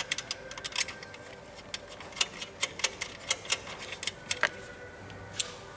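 Irregular light metallic clicks and taps as the factory diesel fuel filter housing is fitted over its mounting studs on a bracket by hand.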